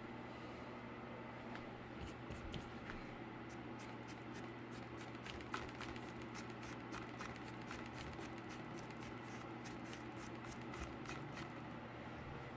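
Faint, quick light ticks and scratches, thickest in the middle, over a steady low hum in a small room.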